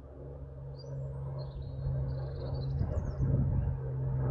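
Distant Spitfire's piston aero-engine droning steadily at one pitch, growing louder as the aircraft approaches. Small birds chirp above it for a couple of seconds near the start.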